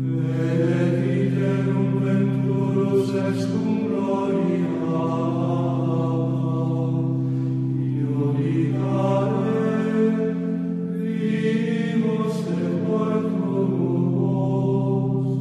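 Devotional chant: voices singing long, slowly changing notes over a steady low drone.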